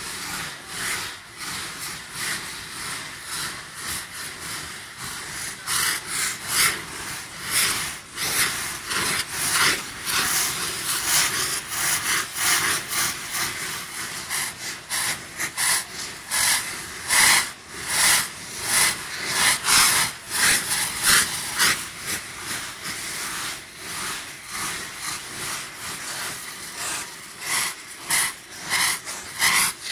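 Hand-held saites, cardboard tubes packed with gunpowder, hissing and spraying sparks. Many short bursts overlap in quick succession and grow louder from about ten seconds in.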